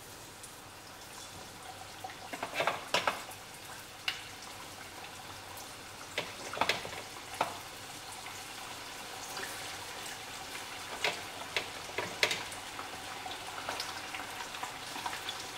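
Chicken wings coated in potato starch frying in hot oil in a pot: a steady sizzle that grows louder as more wings go in. Now and then there is a sharp click or spit.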